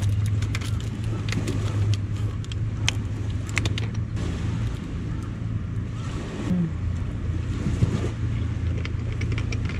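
A steady low hum runs throughout, with scattered small clicks and crinkles from a plastic drink bottle being opened and drunk from.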